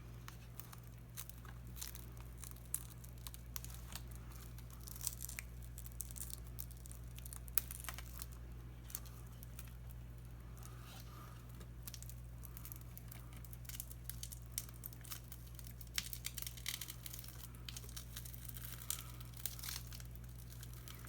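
Shattered, tape-covered tablet touchscreen glass being pried and peeled up off its adhesive: irregular small crackles, clicks and tearing sounds over a steady low hum.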